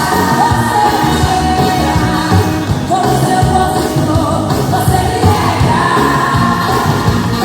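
Background music: a song with a sung vocal line over a steady beat.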